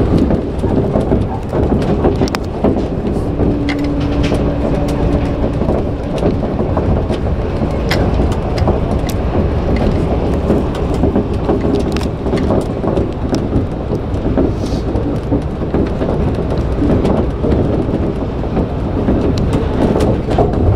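Shonan Monorail 5000-series suspended monorail car in motion, heard from the cab: a steady running rumble from its rubber tyres on the track beam, with sharp clicks and knocks here and there. A steady hum comes in for about two seconds, about three seconds in.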